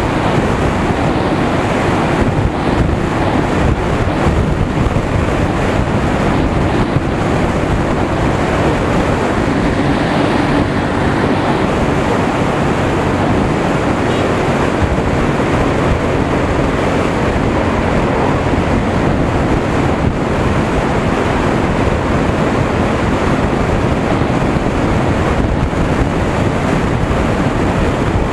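Steady, loud wind rush on the microphone of a moving motorcycle, with the motorcycle's engine humming faintly underneath.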